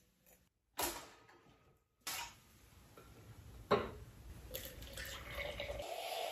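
Kitchen handling while making a matcha drink: a few sharp knocks of glass and utensils on the counter, then from about four and a half seconds in a steady pour of liquid into a glass bottle, its tone rising slightly as it fills.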